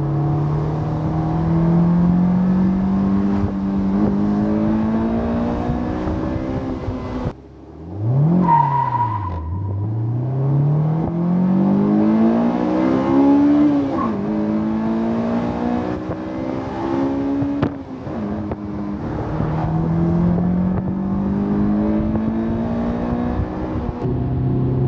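2001 Honda S2000's F20C 2.0-litre four-cylinder engine pulling hard through the gears: its pitch climbs steadily in each gear and drops at each shift. About eight seconds in, after a brief lull, the revs rise and fall quickly before climbing again.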